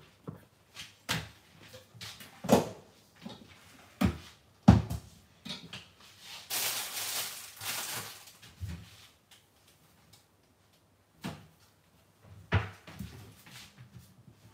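Scattered kitchen knocks and clunks, about six in all, as things are handled and set down, with a hissing rush lasting about two seconds in the middle.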